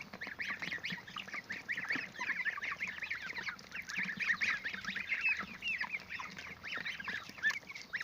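A flock of three-week-old goslings, ducklings and broiler chicks peeping, many short high calls overlapping in a continuous chorus.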